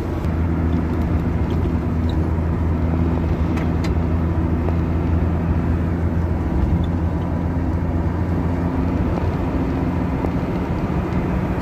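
Steady low engine drone and road noise of a moving vehicle, heard from inside it as it drives along.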